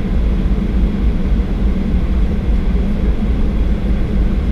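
Boeing 737-800 taxiing, heard from inside the cabin: a steady low rumble from its CFM56-7B engines at idle and the rolling airframe.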